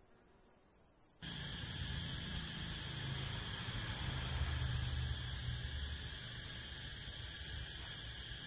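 A steady, high-pitched insect chorus, starting abruptly about a second in, over a low rumble that is loudest in the middle.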